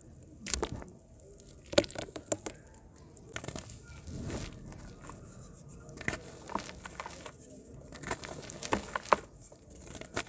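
Chunks of dry mud crumbling and being crushed by hand over a basin of water: irregular crackles and crunches, with bits and powder falling into the water. The sharpest cracks come about two seconds in and again near nine seconds.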